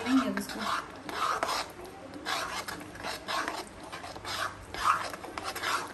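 Metal ladle scraping around a large metal kadhai while stirring thick masala gravy, in repeated rasping strokes about one or two a second.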